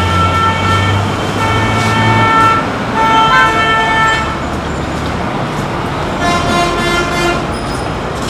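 Vehicle horns, bus horns among them, honking again and again in heavy traffic: several blasts of about a second each, over engine and road noise.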